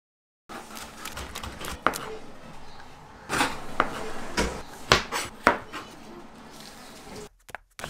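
Kitchen knife knocking on a plastic cutting board while slicing vegetables: about half a dozen sharp, uneven knocks between the first and sixth seconds.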